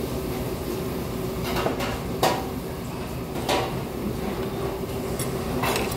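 Metal chopsticks and spoon clinking against a soup bowl during a meal: a few short knocks, the loudest about two seconds in, over a steady low hum.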